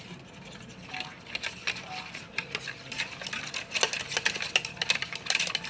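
Batter being stirred in a bowl, the utensil clicking irregularly against the bowl, more busily in the second half.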